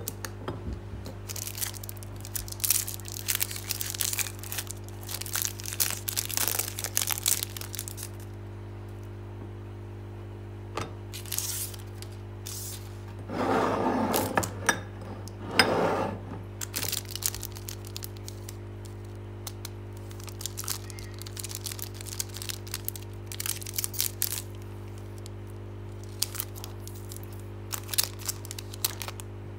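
Foil and plastic chocolate-bar wrappers crinkling, crackling and tearing as they are handled and peeled open, in clusters of sharp crackles that are densest and loudest about halfway through.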